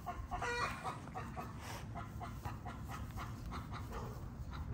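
Chicken clucking in short, repeated notes, with one brief higher call about half a second in.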